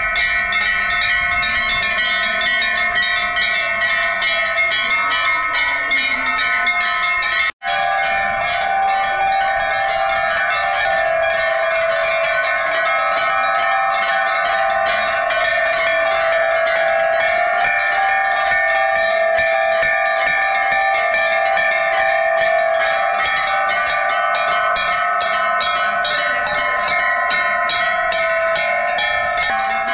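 Many brass temple bells rung over and over at once: a dense, loud, unbroken din of overlapping ringing tones. It breaks off for an instant about seven and a half seconds in.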